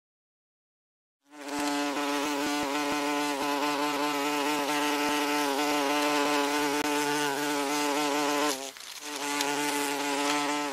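Wasp buzzing: a steady drone with a slightly wavering pitch. It starts about a second in, breaks off briefly near the end, and then resumes.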